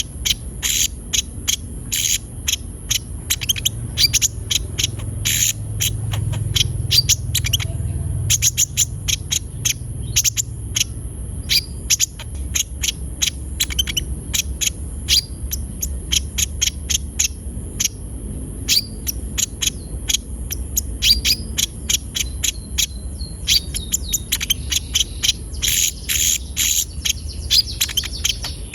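Konin sunbird in full song: a fast, unbroken string of sharp high chirps and twitters, over a steady high-pitched hiss.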